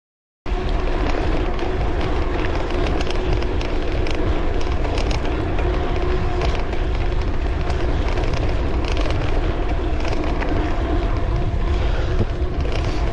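Wind buffeting the microphone while riding a bicycle fast down a dirt road, with the tyres rolling over the dirt: a loud, steady rumble with a steady hum and scattered crackles of grit. It cuts in suddenly about half a second in.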